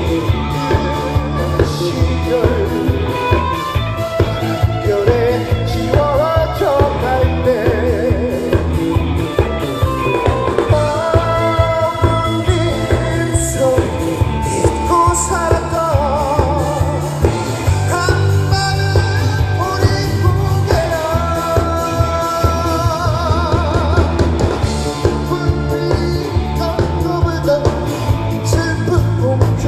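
Live rock band with electric guitars, bass and a drum kit keeping a steady beat behind a male singer belting into a microphone, with vibrato on his held notes.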